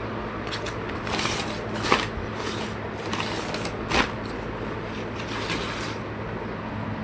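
Packaging and cloth rustling and crinkling as they are handled, in uneven patches, with two sharp clicks about two and four seconds in. A steady low hum sits underneath.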